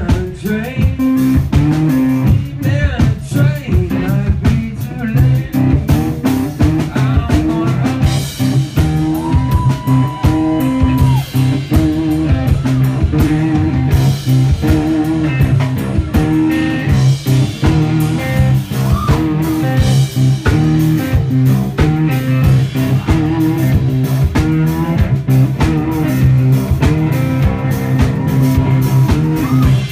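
A live blues-rock band playing: a semi-hollow-body electric guitar, bass guitar and drum kit, captured by a phone microphone in the audience.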